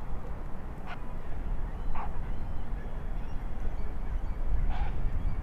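Steady wind rumbling on the microphone, with three short bird calls: about a second in, at two seconds, and near the end.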